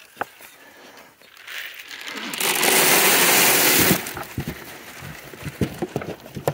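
Dry goat feed poured in a rush into a tub trough for about a second and a half, near the middle. Then come scattered knocks and clicks as the goats crowd in to eat.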